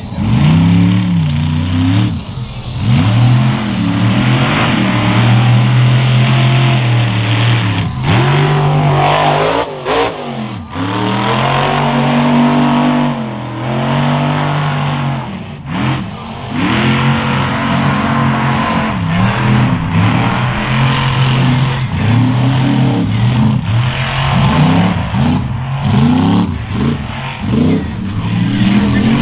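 Chevy mega truck engine revving hard under throttle as it churns through mud, the pitch rising and falling again and again with a deep drop and recovery about ten seconds in.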